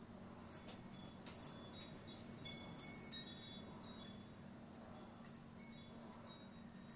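Faint, light metallic clinks and ticks of small metal parts being handled, clustered in the first half and loudest about three seconds in, over a low steady hum.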